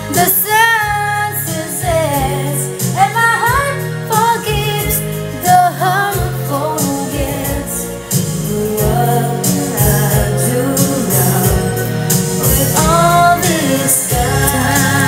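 A woman singing a slow song over an instrumental backing track with a steady bass line.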